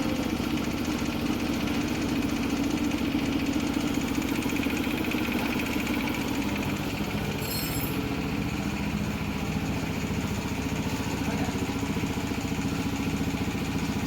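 Motorcycle engine idling steadily, at an even speed.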